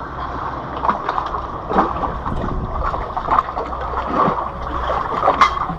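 Wind on the microphone and water lapping against shoreline rocks, with irregular small splashes and clicks throughout.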